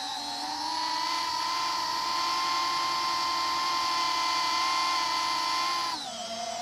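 Holybro Kopis 3-inch cinewhoop's brushless motors and ducted propellers whining at a steady pitch in forward flight. The pitch rises slightly about half a second in and drops near the end as the throttle eases off.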